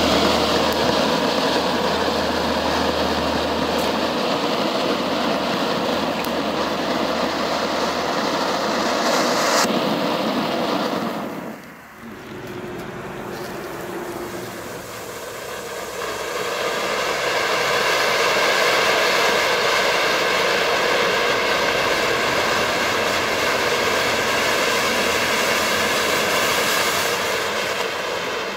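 Funke Zilverfontein category 1 silver fountains hissing steadily as they spray sparks. The first one dies out about twelve seconds in, and a few seconds later the next ones start and build up to a full hiss again.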